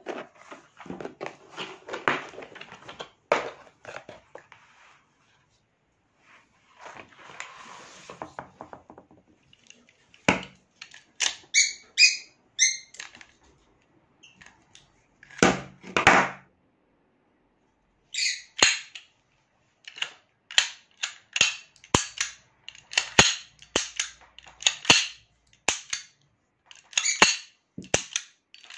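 Hands handling a Kimar pistol and its plastic case. Rustling and clicking as the case is opened comes first, then from about ten seconds in a long irregular series of sharp metallic clicks and clacks as the pistol's slide and magazine are worked.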